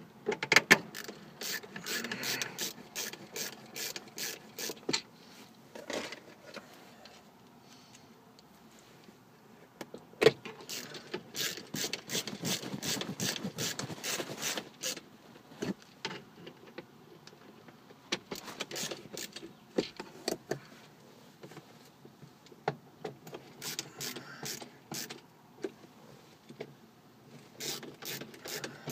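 A screwdriver turning the screws of a car's plastic overhead console, in several runs of rapid clicking with short pauses between.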